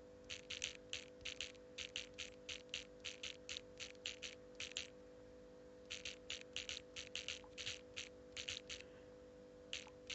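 Rapid clicks of a phone keyboard being typed on, about four taps a second. They come in two runs with a short pause about five seconds in, and a couple more come near the end. A faint steady hum lies underneath.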